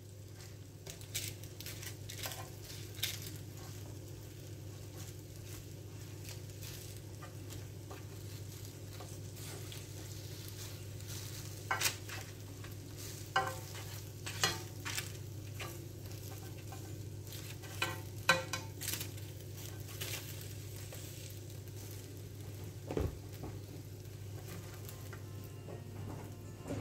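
Hot chicken wings sizzling faintly on a parchment-lined baking tray after about 15 minutes at 220 °C, with scattered clicks and taps of tongs as the wings are turned over. A steady low hum runs underneath.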